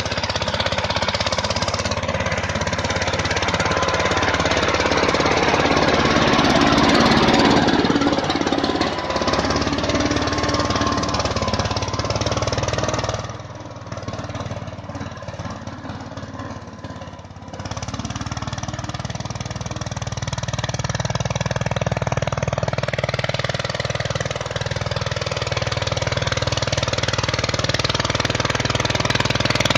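Mahindra Yuvraj 215 mini tractor's single-cylinder diesel engine running under load as it pulls a plough through soil. About halfway through the sound drops quieter for some four seconds, then comes back.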